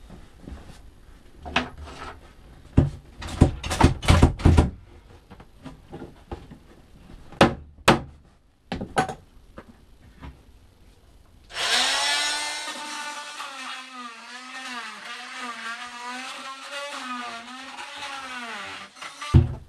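Knocks and clatter of hand work on the boat's cabinetry. About 11 seconds in, a handheld power tool starts up and cuts for about eight seconds, its pitch wavering up and down under load, then stops.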